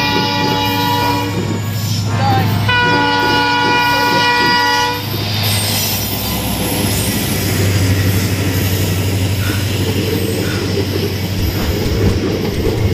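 An Indian Railways diesel locomotive sounding its horn in two blasts, the first ending about a second in and the second running to about five seconds. It then passes close by with a steady engine hum and the rumble of its coaches running on the track.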